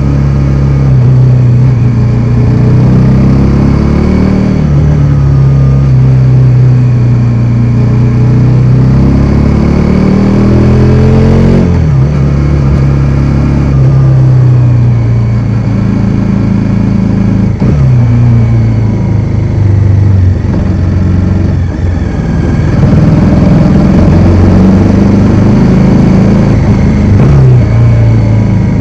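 Bajaj Dominar 400's single-cylinder engine under way, its pitch rising as it revs up and dropping at each gear change, about five times.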